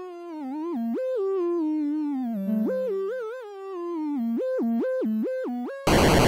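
A simple one-voice synthesizer melody, its notes hopping up and down with short pitch slides between some of them. Just before the end a loud, harsh burst of noise cuts in abruptly.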